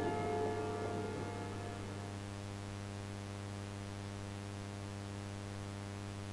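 A steady low buzzing hum with many overtones, an ominous background drone. A higher ringing tone dies away during the first second.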